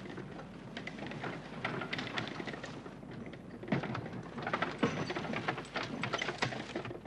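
Hoofbeats and rolling wheels of a horse-drawn carriage on a muddy dirt track, irregular knocks that get louder from about four seconds in as the carriage comes closer.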